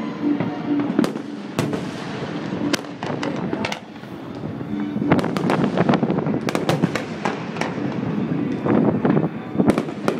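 New Year's fireworks and firecrackers going off all around: a steady stream of sharp bangs and crackling, growing denser about halfway through.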